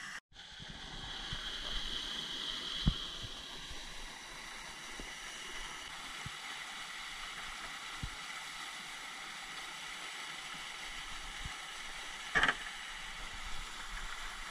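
Steady water noise, with a few faint knocks and a short high-pitched sound about twelve seconds in.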